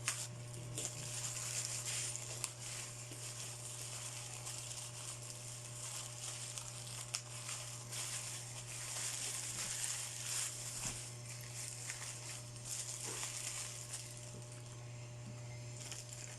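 Plastic packaging and wrapped items rustling and crinkling, with small knocks and clicks as they are handled, over a steady low hum.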